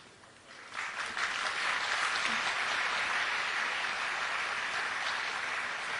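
Audience applauding. It starts about a second in and holds steady.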